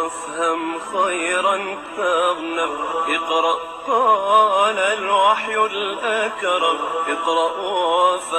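Intro music: a solo singing voice carrying a wavering, heavily ornamented melody, heard through a narrow, processed-sounding band.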